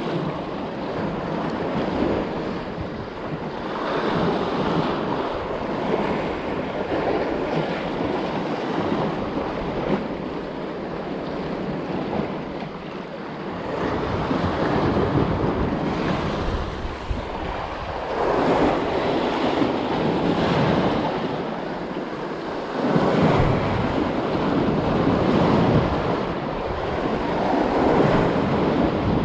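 Sea waves washing against the rocks, swelling and falling back every few seconds, with wind buffeting the microphone.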